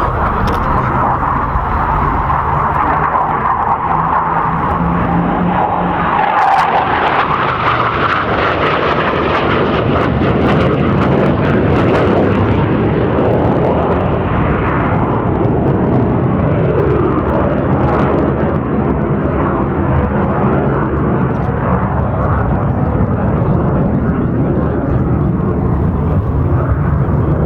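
Hawker Hunter jet's Rolls-Royce Avon turbojet, loud and continuous as the aircraft flies its display. The tone of the noise shifts and sweeps in pitch as the jet moves past.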